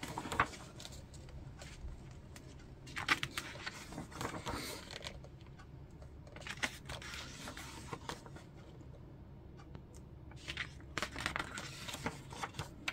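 Pages of a large paperback book being turned and handled, soft paper rustling and swishing in several short bursts: about three seconds in, around seven seconds, and again near the end.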